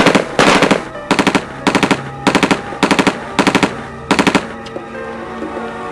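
Automatic gunfire fired in short bursts of four or five rapid shots each, about eight bursts roughly half a second apart. It stops about four and a half seconds in.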